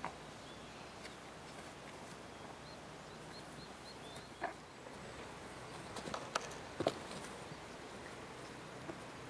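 Quiet garden ambience with cats playing in the grass: a quick run of short high chirps about three seconds in, then a handful of soft rustles and taps, the loudest about seven seconds in, as a cat pounces and rolls in the grass.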